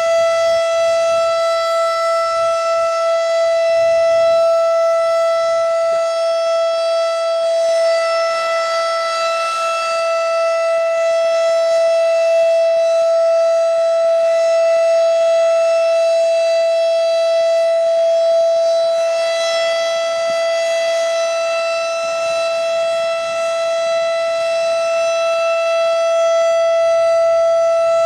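Federal Signal Thunderbeam 12-port siren sounding a steady, high-pitched single tone rather than a rising-and-falling wail, the alert signal. It swells and fades slightly as the rotating siren head turns.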